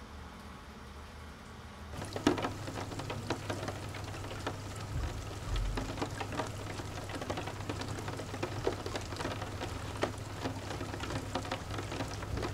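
Rain pattering on a car's roof and windows, heard from inside the cabin as a dense, irregular spatter of drops over a low steady hum. The patter comes in suddenly about two seconds in; before that there is only a faint steady hiss.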